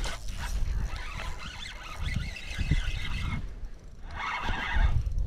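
Paddle strokes swishing and splashing through lake water, in two stretches, over a low rumble of wind buffeting the microphone.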